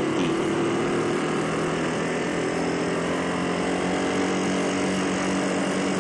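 Motorcycle engine running at a steady speed while riding, with wind rushing over the helmet-mounted microphone.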